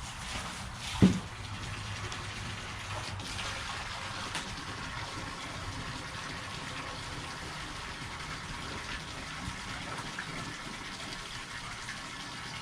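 Water from a hose running steadily into a bucket as it fills, with one loud thump about a second in.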